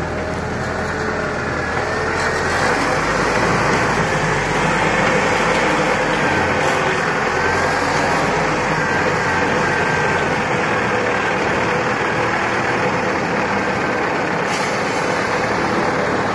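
Caterpillar wheel loader's diesel engine running under load as it raises and tips a bucket of sand, getting louder about two seconds in, with a high whine that wavers in pitch over the engine noise.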